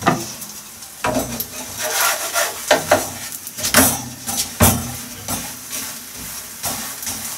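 Katmer flatbread frying in an oiled pan with a faint sizzle, broken by several sharp knocks and scrapes of a utensil against the frying pan as oil is spread over it.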